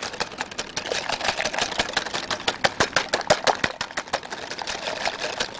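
Hand whisk beating eggs and sugar in a glass bowl: rapid, even clicking strokes of the whisk against the glass, several a second.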